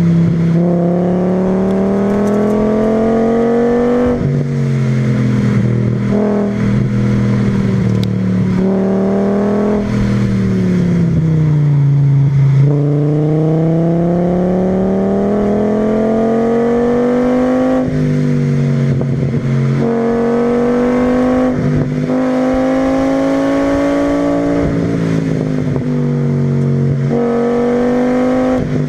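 VW VR5 20V five-cylinder engine sweeping through its rev range, breathing through a K&N panel filter and exhausting through a Milltek resonator and a 2.25-inch straight-through pipe. The pitch climbs and falls again and again, with several sudden drops and steps between the climbs.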